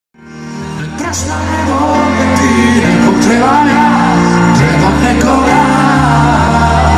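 Live pop band music: a male singer over stage keyboard and electric bass, fading in during the first second. A few sharp hits sound through it.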